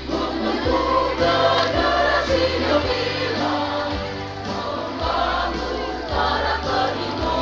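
School choir singing a march in several voice parts, over an instrumental accompaniment with a steady bass line.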